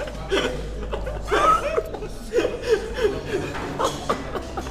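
Several young men laughing and chuckling together in a run of short bursts.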